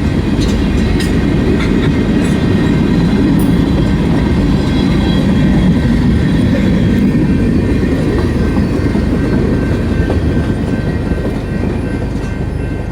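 Union Pacific local freight train rolling past: the steady rumble of its cars, with wheels clicking over the rail joints, easing off a little near the end.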